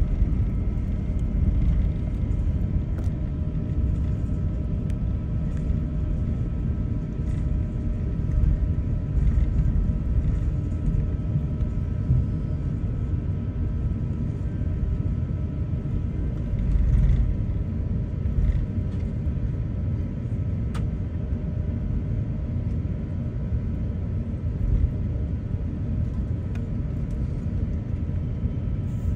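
Airliner cabin noise while taxiing: a steady low rumble with a faint constant hum and a few small knocks.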